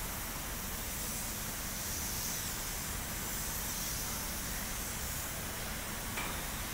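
Steady hiss of a painting robot's air spray gun atomizing paint onto steel wheel rims in a spray booth, with a low rumble underneath.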